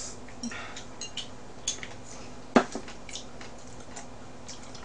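Chopsticks clicking against a small dish during a meal, with scattered light eating noises. One sharp click a little over halfway through.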